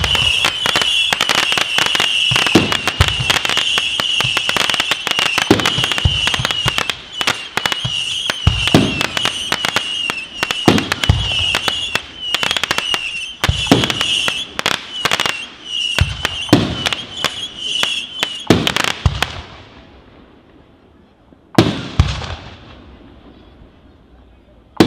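Fireworks display: dense crackling bursts with a high wavering whistle over them, and deep shell booms every two to three seconds. The crackle dies away about 19 seconds in, then two single bangs follow, each trailing off in crackle.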